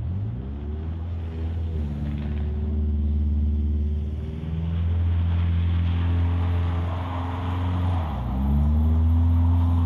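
A 2002 Subaru Outback's 2.5-litre flat-four engine revving up and down as the car is drifted on snow. The pitch climbs sharply just after the start, holds, then drops and climbs again a little after eight seconds.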